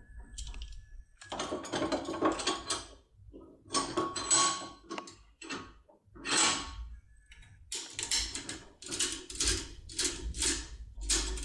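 Turbo decoder working in a JUWEL 3+3 safe lock: metal scraping and clicking as the tool is inserted and turned. A few separate scrapes come first, then a quick, even run of short strokes near the end.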